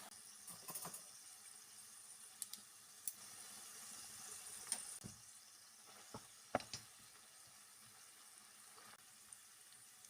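Light kitchen handling sounds: a few soft clicks and knocks, scattered and irregular, over a faint steady hiss, the sharpest knock about two-thirds of the way through.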